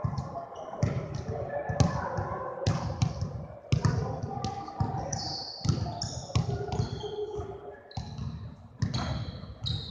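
Basketballs bouncing on a hardwood gym floor: irregular thuds, some in quick runs, echoing in the large hall.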